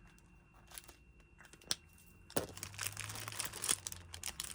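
Paper stickers and sticker-book pages being handled: a couple of faint taps, then from about halfway a run of paper crinkling and rustling.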